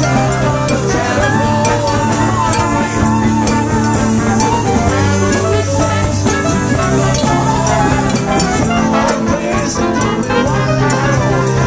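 A live band playing a song, loud and continuous, with sustained instrument notes over a steady bass line.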